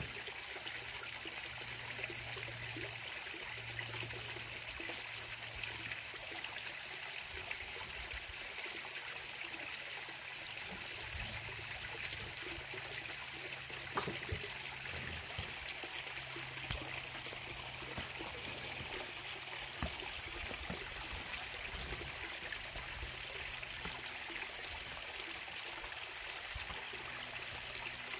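Small canyon stream trickling steadily over rocks, with a few faint knocks.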